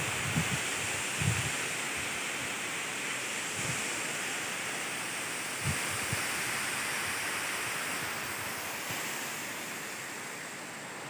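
Steady rush of a waterfall's falling water, easing slightly toward the end, with a few low wind bumps on the microphone near the start and about halfway through.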